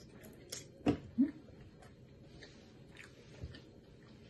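A person chewing a mouthful of fried chicken, with wet mouth smacks and small clicks. Two louder brief sounds come close together about a second in, the second a short low hum.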